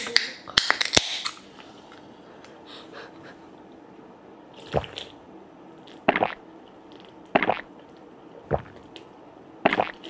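A can of cola is cracked open with a sharp pop and fizz, followed by a few quick clicks in the first second or so. From about five seconds in come five gulps, about a second apart, as it is drunk straight from the can.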